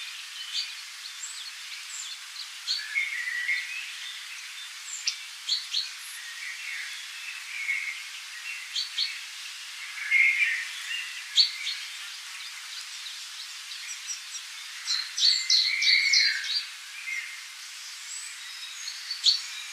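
Several wild birds singing and calling in a forest: short chirps, quick whistled notes and trills from more than one bird, over a steady hiss.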